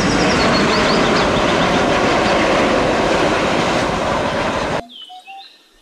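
Boeing 737-800 jet airliner on its takeoff run, its CFM56 turbofans at takeoff thrust making a loud, steady rush of engine noise as it rotates and lifts off. The sound cuts off suddenly about five seconds in.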